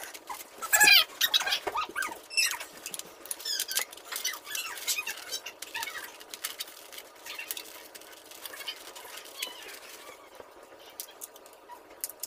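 Foam-board 3D puzzle pieces squeaking and clicking as they are pressed and slotted together: a run of short, high squeaks that bend up and down in pitch, busiest in the first half and thinning out after that.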